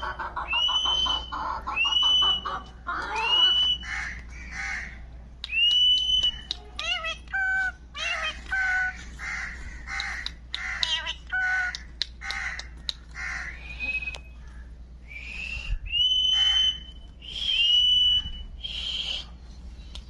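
A parakeet calling over and over: shrill, whistled calls that rise and then hold, about one a second at times, mixed with shorter, sharper chirps and some lower calls.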